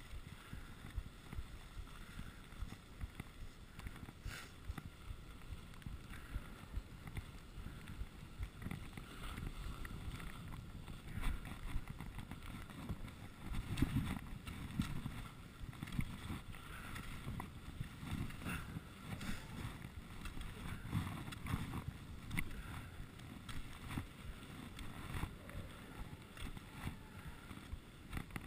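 Skis sliding over packed snow, with wind buffeting the GoPro microphone as an uneven low rumble that swells and fades as the skier glides and slows.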